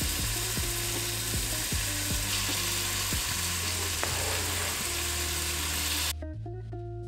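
Chopped chicken and red peppers frying in oil in a pot, a steady sizzle over background music with a steady beat. The sizzle cuts off suddenly about six seconds in, leaving the music.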